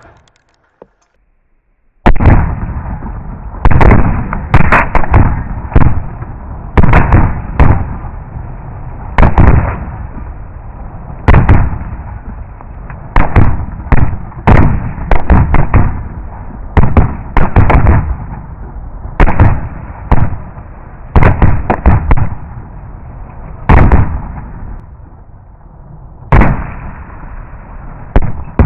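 A long string of gunshots begins about two seconds in: roughly one a second at an uneven pace, some in quick pairs, each with a long echoing tail.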